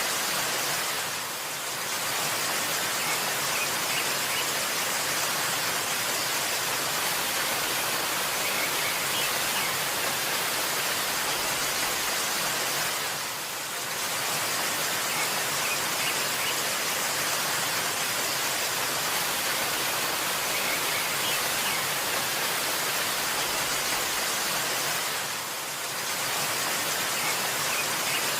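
Steady rushing water of a waterfall, dipping briefly in level about every twelve seconds.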